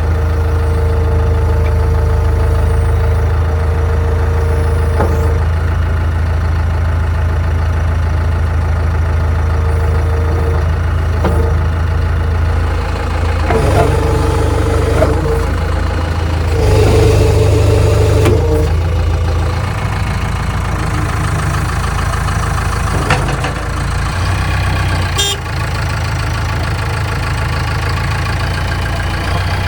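Diesel engine of a JCB 3DX backhoe loader running steadily, with a whine that comes and goes, loudest a little over halfway through, as the machine works. A few sharp knocks are heard along the way.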